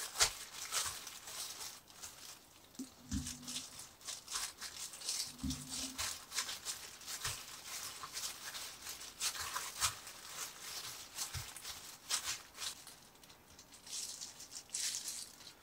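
Disposable plastic gloves crinkling and rustling in many short scrapes as gloved hands press and roll strands of rice-cake dough together on a silicone mat.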